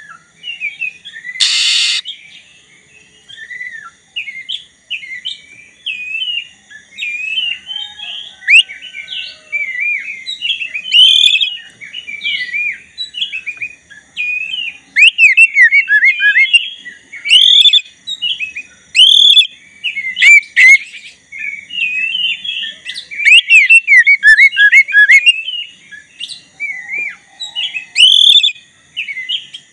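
Black-breasted oriental magpie-robin (kacer dada hitam) in full song: a fast, varied run of loud whistled notes and chirps in phrases with short pauses, with a short harsh burst about two seconds in.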